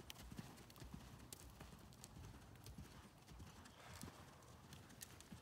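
Faint, muffled hoofbeats of a horse cantering on a sand arena surface.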